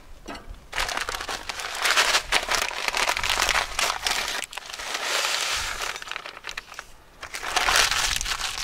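Crinkling and rustling of a stuffing-mix bag being opened and handled, with dry stuffing crumbs poured into a glass bowl. It comes in one long stretch, then a shorter one near the end.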